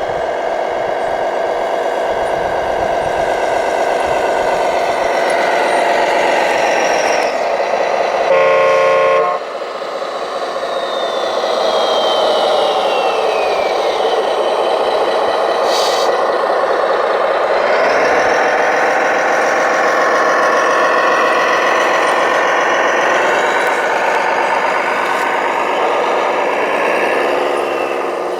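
Radio-controlled construction trucks and machines running, a steady layered whine of motors that shifts in pitch, with one winding down in a falling whine a few seconds after the middle. About eight seconds in, a short, loud horn toot.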